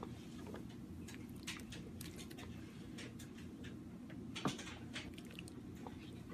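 A pot of nam ngiao soup simmering while a ladle stirs it, giving scattered soft pops and small clicks over a steady low hum, with one sharper click about four and a half seconds in.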